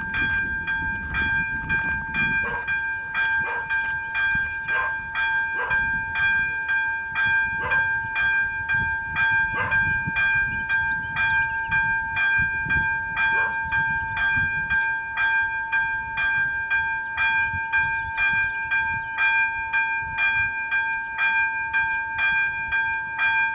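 Level-crossing warning bell ringing in a fast, even rhythm over a constant ringing tone. It signals that the crossing has been activated for an approaching train, with the red warning light flashing and the barriers about to lower.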